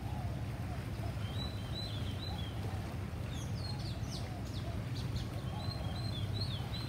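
Small birds chirping in short clusters of quick, downward-curving notes, several times over, against a steady low rumble.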